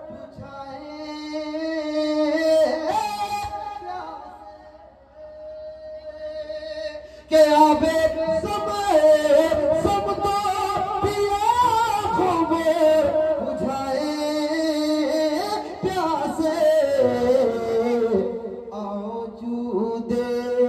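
A man singing a devotional qawwali-style song in long, wavering held notes over instrumental accompaniment. It drops quieter a few seconds in, then comes back louder about seven seconds in.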